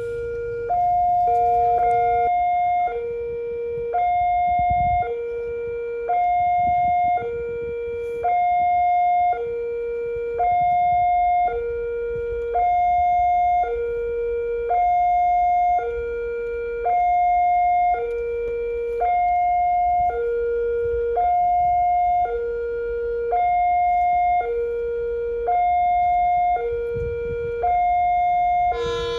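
Railway level-crossing warning siren sounding its two-tone alarm: a higher and a lower tone alternate steadily, each held about a second.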